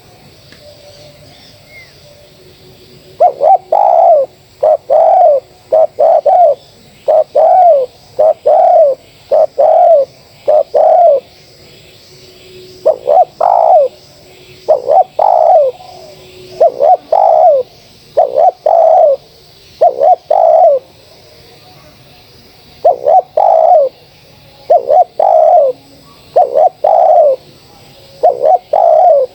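Spotted dove (terkukur) cooing loudly and close by: a run of repeated coo phrases starting about three seconds in, broken by two short pauses into three runs.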